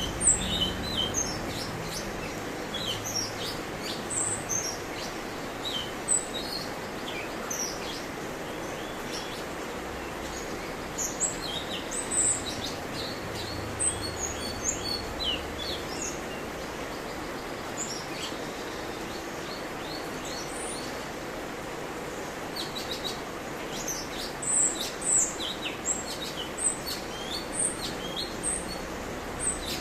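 Cucak cungkok songbird singing a varied string of short, high chirps and quick whistled sweeps, busiest near the end, over a steady background hiss.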